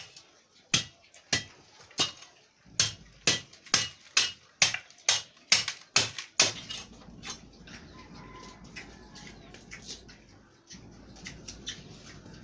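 About a dozen sharp knocks at roughly two a second for six seconds, then a softer steady scraping.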